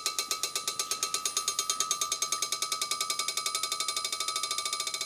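Steel ball bearing bouncing on the face of a Kohlswa cast-steel anvil: a fast, even run of sharp pings, about eight a second and slowly quickening and fading, over a steady metallic ring. The long bounce is the sign of hard, dense steel in the anvil face.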